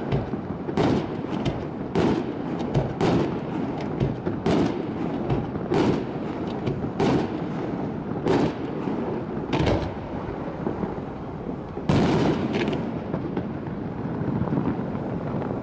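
Aerial firework shells bursting, a sharp bang about once a second with crackle between them. A short lull comes about two-thirds of the way through, then the loudest bang of the run.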